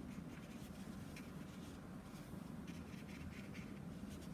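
Watercolour brush dabbing and stroking on textured watercolour paper: a series of faint, short scratchy strokes over a low steady hum.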